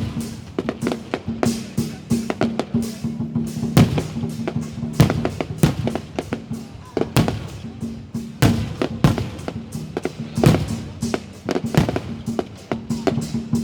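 Fireworks going off in quick, irregular succession, many sharp bangs and pops a second, with music playing underneath.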